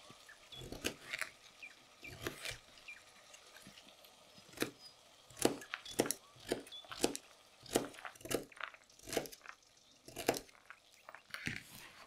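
Kitchen knife cutting a carrot into small cubes on a cutting board: an irregular series of sharp chops as the blade goes through the carrot and knocks on the board.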